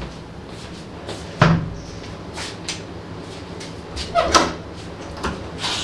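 A door or cupboard being handled: a heavy knock about a second and a half in, a cluster of clicks and knocks around four seconds in, and a couple of lighter knocks near the end.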